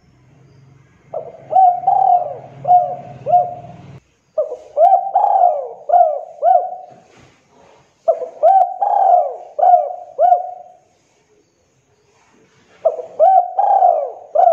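Spotted dove cooing: four phrases of several short coos each, separated by brief pauses.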